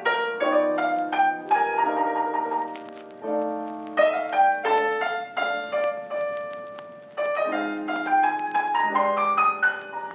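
Background piano music: a gentle melody over chords, played in phrases that swell and fade.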